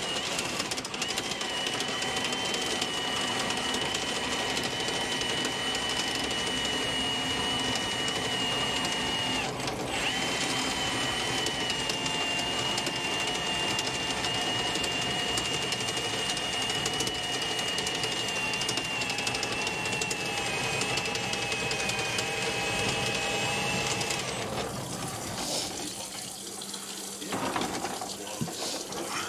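Drill-driven Ridgid K9-204 FlexShaft drain cleaner spinning its cable in a kitchen sink drain line, a steady motor whine. It stops briefly about ten seconds in, then runs again with its pitch sagging slightly before it shuts off with a few seconds left.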